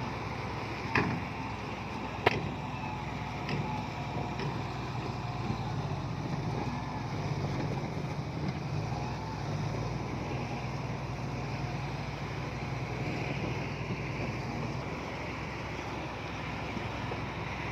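Heavy earthmoving machine's diesel engine running steadily, with a few sharp metallic clanks in the first few seconds.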